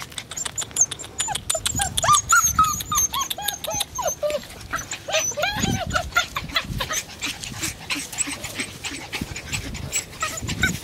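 Bernese Mountain Dog puppies whining and yipping, many short high calls that rise and fall, overlapping one another, with scattered clicks and rustles.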